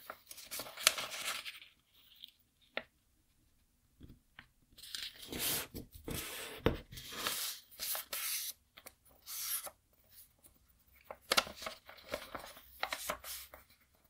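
A square sheet of origami paper being handled and folded by hand: crisp rustling and crinkling in three spells, with short sharp snaps as creases are pressed in.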